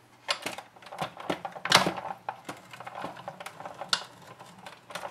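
Big Shot hand-cranked die-cut machine being cranked, a run of irregular clicks and clacks as the plates and die pass through the rollers, loudest about two seconds in.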